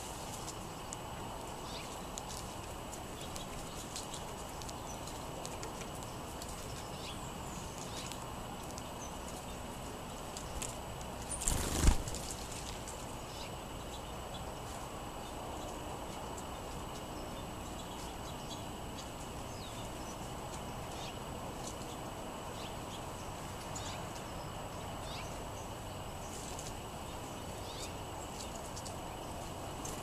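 Small birds pecking at seed and hopping on a wooden picnic table: light, scattered taps over a steady outdoor hiss. One loud thump about twelve seconds in.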